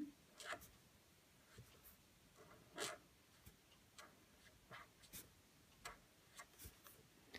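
Faint scratching of a Faber-Castell Pitt Artist brush pen's tip drawn across paper as letters are written, in short separate strokes, the clearest about three seconds in.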